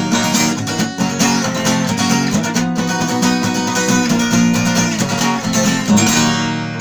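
Acoustic guitar strummed in a fast galloping strumming pattern (бой галоп), chords played on to the close of the song and cut off sharply at the very end.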